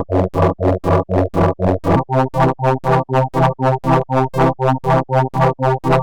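Software synthesizer built in Pure Data playing a fast pulsing sequence of synthesized notes, about five a second. About two seconds in, the pitch changes and the low note moves up.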